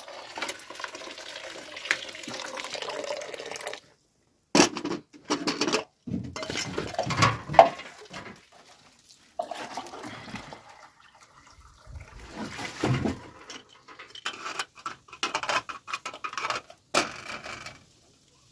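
Water poured from a small kettle into a plastic basin in a steady stream for the first few seconds. After that, short bursts of splashing and pouring as hands work in the water, broken by abrupt gaps.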